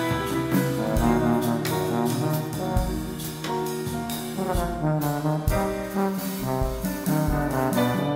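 Live band playing an instrumental tune: a brass horn holds sustained notes over accordion, piano, guitar, drum kit and congas, with a low bass hit every second or two.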